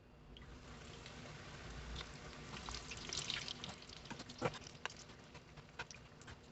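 Batter frying in hot oil: a light sizzle with scattered crackles and pops, busiest midway.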